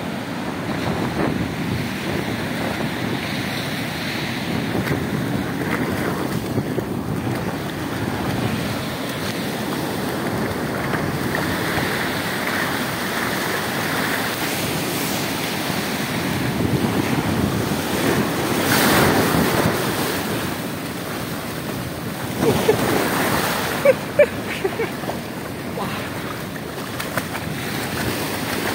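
Waves breaking and washing over a sandy shore, with wind buffeting the microphone and water splashing as a dog wades through the shallows. A few short, sharp sounds come about three-quarters of the way through.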